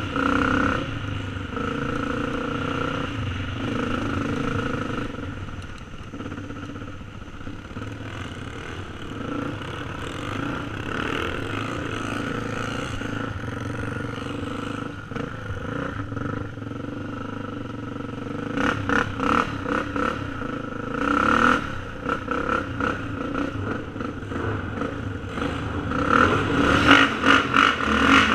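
Yamaha TT350 dirt bike's single-cylinder four-stroke engine running steadily on a gravel trail, with choppy bursts of throttle twice in the second half. It gets louder near the end as the bike rides into a large corrugated culvert pipe.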